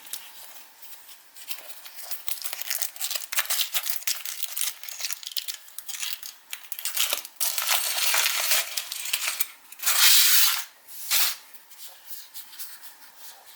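Foil wrapping of a Kinder Surprise chocolate egg being crinkled and torn, a dense crackle with a louder tearing burst about ten seconds in and a short one just after.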